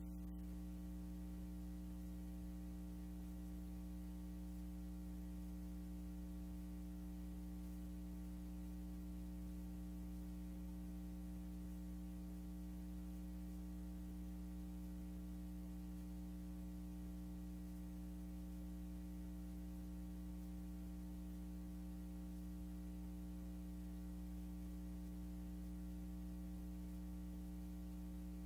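Steady electrical mains hum with a faint hiss, the only sound on a soundtrack that carries no recorded audio.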